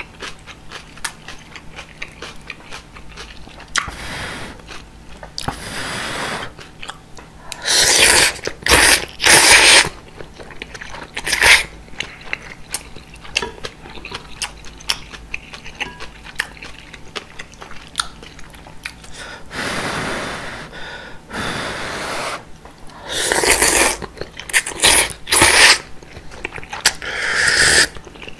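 Close-miked eating of udon noodles in broth: loud slurps of thick noodles and broth come in two runs of several each, with wet chewing and small mouth clicks in between. The last slurp, near the end, is broth sipped from a wooden ladle.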